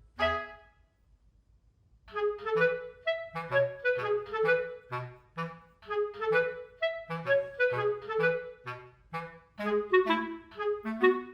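Background music: a melody of short notes with a bass line, stopping just after the start and starting again about two seconds in.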